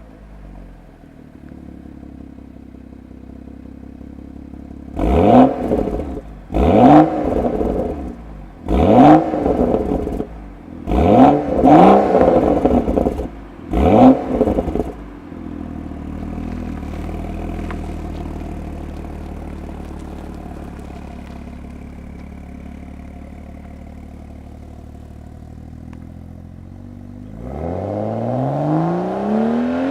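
BMW 335i's turbocharged inline-six, breathing through a Remus full exhaust, idles just after a cold start, then is revved five times in quick succession, each rev falling back with pops and crackles from the exhaust. It settles back to a steady idle, and near the end the engine note rises steadily again.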